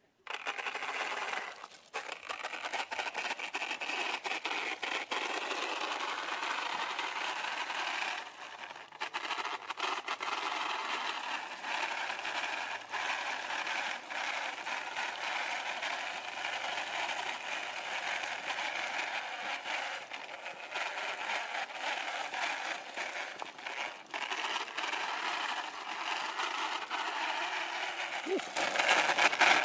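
3D-printed RC car with a brushless electric motor driving over rough, bumpy pavement: a steady rattling crackle from its wheels and body, with a faint wavering motor whine.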